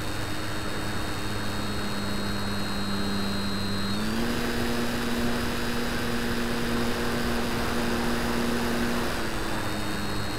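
Model Tiger Moth biplane's motor and propeller heard through a camera mounted on the model: a steady hum over a rushing noise. About four seconds in, the pitch steps up as the throttle is opened for the takeoff, holds, then eases back a little near the end once airborne.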